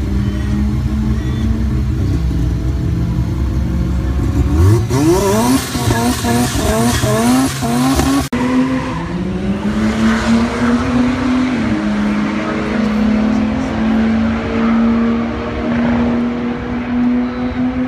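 Car engines at a drag strip. First an engine revs up in a quick run of rising sweeps as a car accelerates away. Then, after a break, the FPV F6's turbocharged straight-six is held at high revs, rising slowly and then steady, with tyre squeal from a burnout to heat the tyres.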